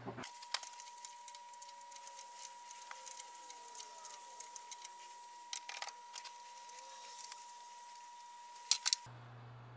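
Fast-forwarded workshop audio with a steady high tone throughout. Over it come rapid faint clicks and clinks of metal lathe tailstock parts being handled, with a few sharper clicks near the end.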